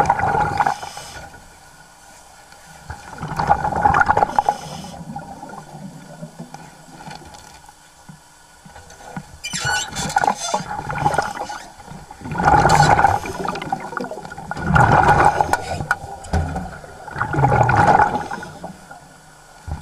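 Underwater bubbling from a scuba diver's regulator exhaust, heard as rumbling bursts every few seconds with quieter water between. There is a louder, wider burst of churning water about ten seconds in.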